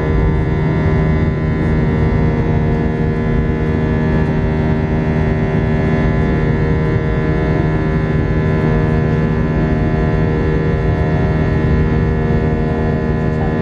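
Airbus A319 jet engines heard from inside the passenger cabin during the climb after take-off: a loud, steady drone with several held tones and a bed of rushing noise.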